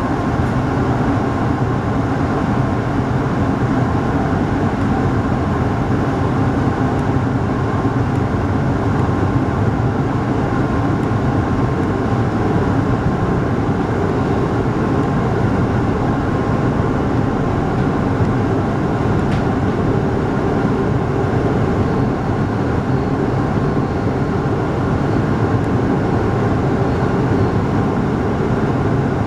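Steady running noise heard from inside a local train's passenger cabin: the rumble of the wheels on the rails and the train's running gear as it travels along the line.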